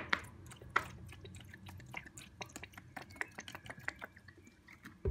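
Vinegar poured from a plastic bottle into a plastic tub, the stream splashing into the liquid with many small sharp splashes and drips. A sharp knock right at the start.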